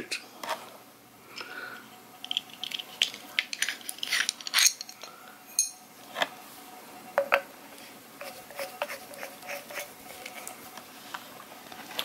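Tripod quick release plate being handled and threaded onto the bolt in a galvanized pipe cap: irregular small clicks, knocks and light metallic clinks.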